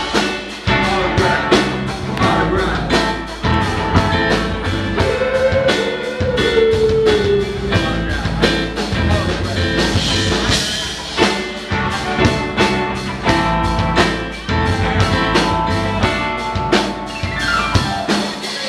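Live rock band playing: drums keep a fast, even beat under electric and acoustic guitars and keyboard. A note bends up and back down about five to seven seconds in, and a falling run comes near the end.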